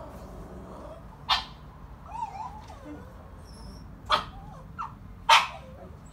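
Border terriers barking inside the house, heard through a front door that is open a crack: a few single sharp barks spaced a second or more apart, the loudest near the end. They are occasional barks rather than frantic, continuous barking.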